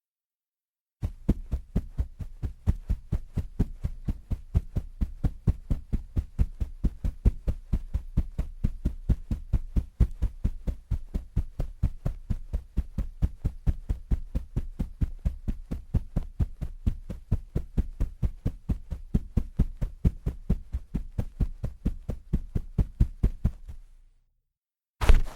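Fast footsteps at about four steps a second, as in running: even, dull low thuds. They stop after about 23 seconds, and a single heavier thud comes near the end.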